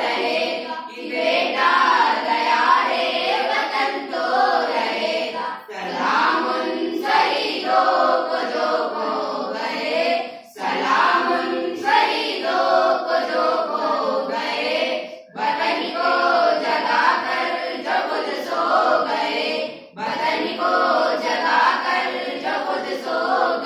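A group of schoolchildren singing a patriotic song together in unison, in sung lines of about five seconds with short breaks for breath between them.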